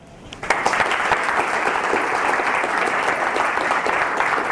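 A small audience applauding by hand-clapping, beginning about half a second in.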